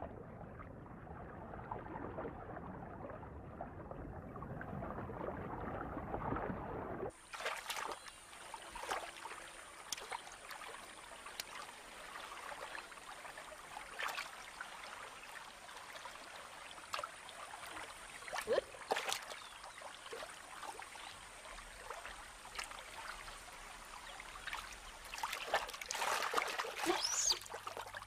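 Giant otters swimming and splashing: dull, muffled underwater water sound for the first seven seconds, then a sudden change to clearer surface sound of water trickling and lapping with scattered small splashes, getting louder near the end.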